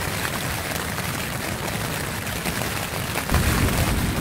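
Strong wind buffeting the flysheet of an MSR Access 2 tent, heard from inside, with a steady rushing noise and wind rumble on the microphone that grows heavier about three seconds in.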